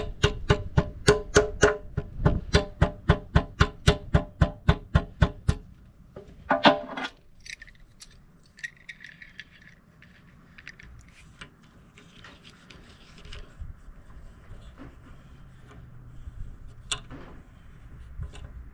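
Hammer tapping steel excavator bucket-tooth parts into place: quick, even ringing blows about three to four a second that stop about five seconds in. One louder clank follows, then light metal clinks as the parts are handled.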